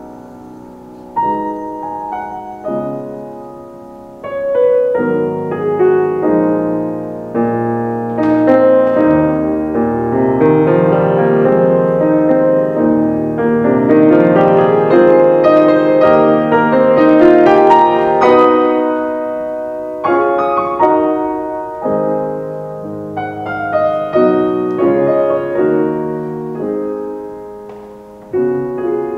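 Solo piano playing a slow piece of chords, building louder through the middle and softening toward the end.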